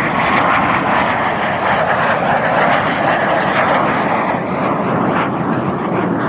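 BAC Strikemaster jet, with its single Rolls-Royce Viper turbojet, flying past overhead: a loud, steady jet noise that eases slightly in the second half as the aircraft pulls away.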